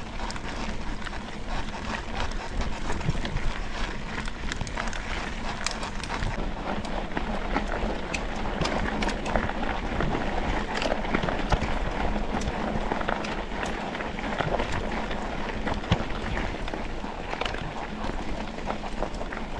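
Mountain bike being ridden along a dirt trail: a steady rush of wind and tyre noise with frequent small knocks and rattles from the bike.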